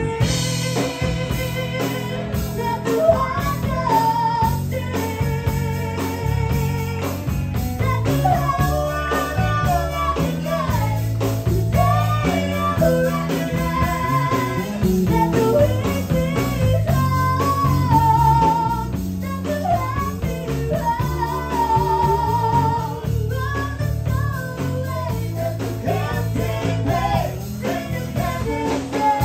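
A live band plays while a woman sings lead into a microphone, over electric bass and guitar. Her held notes waver with vibrato.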